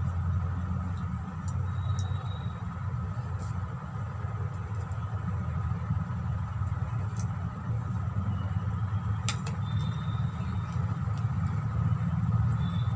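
Steady low background rumble, with a few faint clicks and a sharper clink about nine seconds in.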